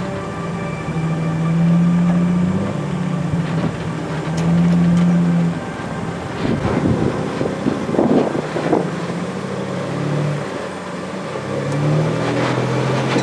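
Four-wheel-drive vehicle's engine running on an off-road trail, its pitch rising and falling several times with the throttle. A stretch of clattering and knocks comes about halfway through.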